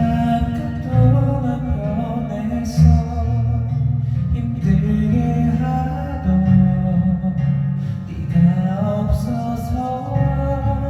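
Music: a slow ballad with guitar accompaniment and a singing voice carrying the melody.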